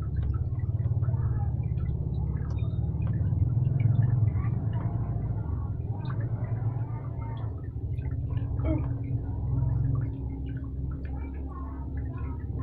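Hands working wires and electrical tape: light crinkling and small clicks over a low, uneven rumble. A faint steady hum comes in about two-thirds of the way through.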